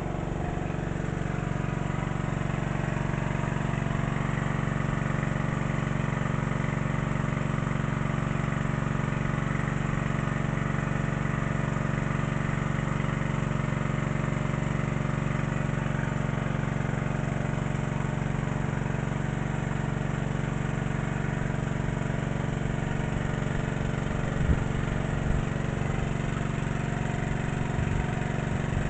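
Small engine-driven water pump running steadily at a constant speed, drawing river water for irrigation. A couple of brief knocks are heard near the end.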